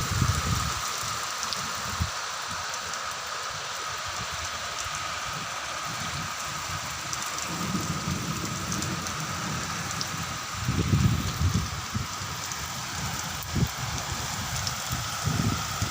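Heavy rain falling steadily as an even hiss, with low rumbles swelling and fading twice, around the middle and again about two-thirds of the way through.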